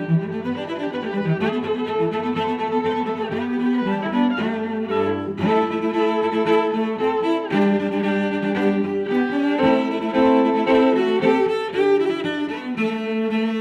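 Background music with bowed strings playing sustained, shifting notes.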